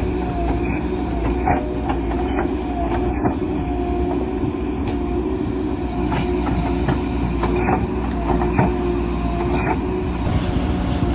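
A heavy machine running steadily, with a wavering whine over a low drone and irregular knocks and clanks.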